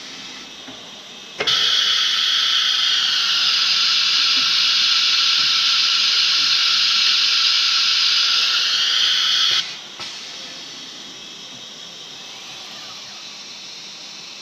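A CNC router with a boring head gives off a loud, steady hiss that starts abruptly about a second and a half in and cuts off abruptly some eight seconds later. A lower steady machine noise runs under it and continues after it stops.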